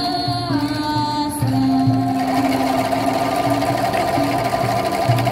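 Bamboo angklungs shaken by an ensemble in a fast rattling tremolo, holding a chord from about two seconds in. Before that come sustained melody tones, and a low pulsing beat runs underneath.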